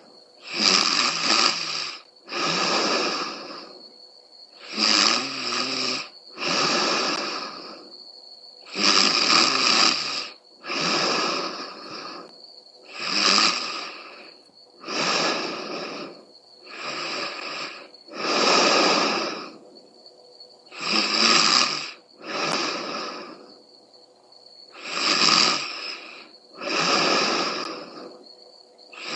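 A woman snoring loudly in steady rhythm, two rasping breath sounds close together about every four seconds.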